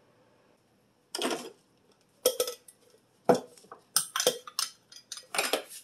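Dishes and cutlery clattering: a run of irregular knocks and clinks that starts about a second in.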